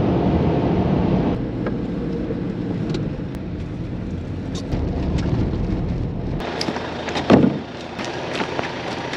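Steady low road and engine noise heard from inside a moving vehicle's cabin; about six seconds in it drops away abruptly, and a sharp knock follows a second later.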